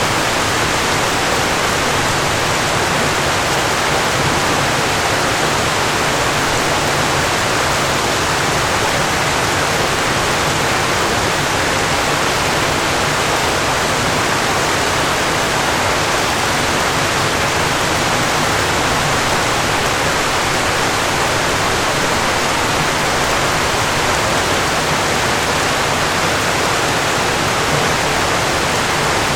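Falling water: a steady, unbroken rush of water with no changes or distinct splashes.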